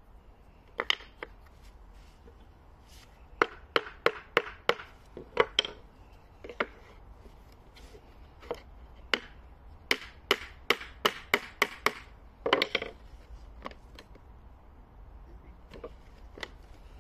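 Small metal-headed hammer tapping wooden wedges and pegs home in a wooden workbench, driving them tight to clamp a board upright. Sharp wooden knocks come in quick runs of eight or nine strikes, with single taps and a brief rattle of wood between the runs.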